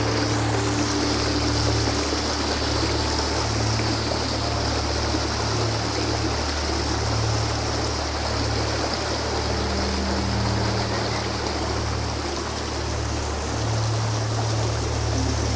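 Shallow forest river flowing, a steady rush of water. Low held notes of soft background music sit underneath, with a new higher note coming in about halfway through.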